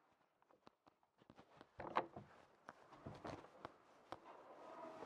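Faint footsteps on wooden porch boards with scattered light wooden knocks and clicks, as a wooden ladder is handled and a plank cabin door is opened.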